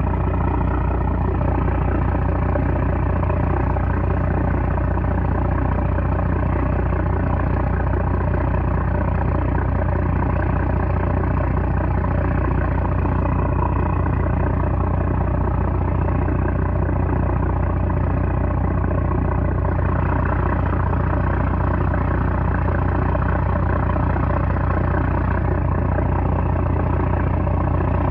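The 330-horsepower diesel engine of a small trawler running steadily, a loud, even drone with a strong low hum.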